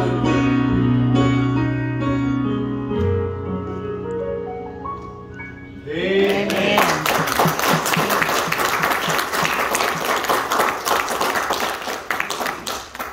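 A gospel song ends on a long held chord of voices and keyboard that fades over about six seconds, then the congregation applauds, dying away near the end.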